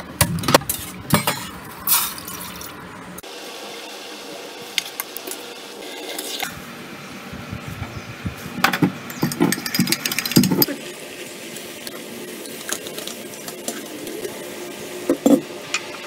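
A run of kitchen sounds at a gas stove: sharp clicks as the burner is lit, then a steady hiss, then steel pans and utensils clinking, and liquid poured through a mesh strainer into a pot.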